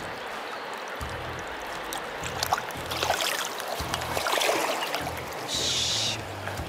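Rushing river water: a steady hiss, with scattered splashes and clicks through the middle and a brief louder rush of hiss near the end.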